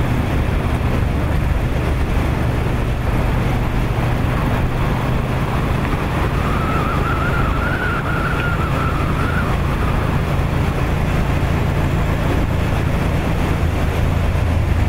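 Steady engine hum with road and wind noise from a vehicle moving at racing speed alongside a time-trial cyclist. Midway, a higher tone rises slightly and holds for about three seconds.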